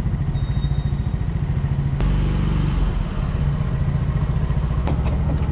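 Yamaha 125cc scooter's single-cylinder engine running at low speed as the scooter rolls slowly to a stop, with a sharp click about two seconds in and another near the end.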